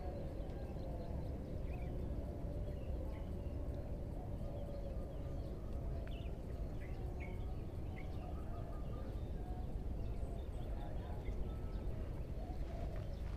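Outdoor riverside ambience: a steady low rumble with a faint wavering hum, and birds giving scattered short chirps throughout.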